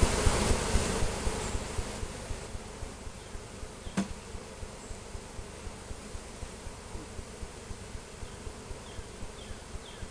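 Swarm of honey bees buzzing around an open hive, louder for the first second or two and then fading, with one sharp click about four seconds in.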